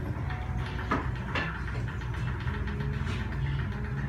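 KDK 12-inch axial ceiling exhaust fan running with a steady low hum. A couple of short rustles or clicks come about a second in.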